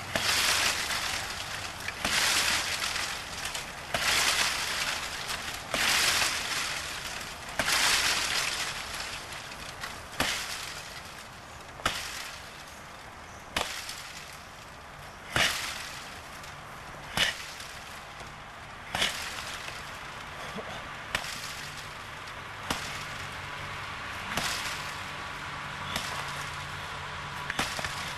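A run of sharp knocks or strikes, about one every two seconds, preceded in the first few seconds by longer rustling swishes each lasting about a second.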